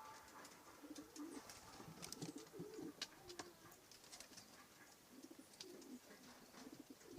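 Domestic pigeons cooing faintly in low, wavering phrases, in two spells, with scattered light ticks and taps.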